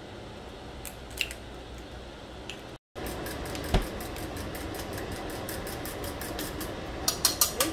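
Eggs being cracked with a few light taps, then a fork beating eggs in a bowl: quick, even clicks, louder near the end, over a steady low hiss, with one knock a little after the halfway mark.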